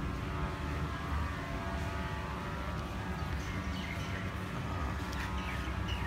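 A steady, low, engine-like mechanical drone, unchanging in level.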